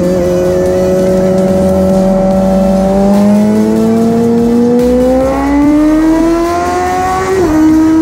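Suzuki GSX-R1000 K8 inline-four through a decat Cobra twin exhaust, holding steady revs for a few seconds and then accelerating with a steadily rising pitch. A quick upshift near the end drops the pitch slightly, and then it pulls on. It is heard inside a road tunnel.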